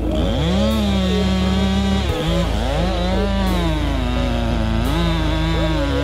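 Chainsaw cutting into the trunk of a large standing tree to fell it, its engine pitch dipping and climbing back again and again as the bar loads up in the wood.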